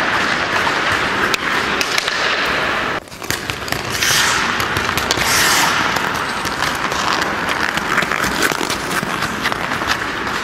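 Ice hockey skates carving and scraping on rink ice, with many sharp clicks of stick blades and puck. Two hissing scrapes of skate blades biting into the ice stand out about four and five and a half seconds in.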